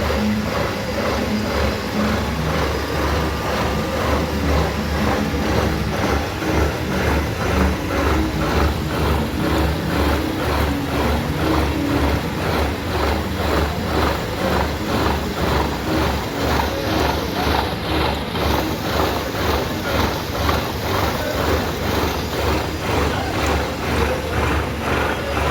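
Metal lathe running and cutting grooves into a heavy steel ship's starter gear, a steady machine sound with an even rhythmic pulse throughout.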